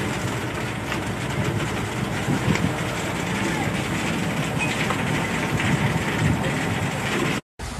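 Hail and heavy rain pelting down in a dense, steady clatter, with wind buffeting the microphone. It cuts off abruptly near the end.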